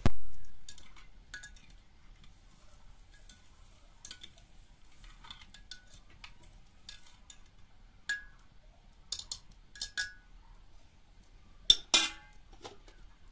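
Ceramic clinks and knocks as a green-glazed clay pot is handled and set on the bricks in a wood fire: a loud knock at the very start, then a handful of separate short clinks with a brief ring, the loudest pair near the end. Faint crackling of the burning wood runs between them.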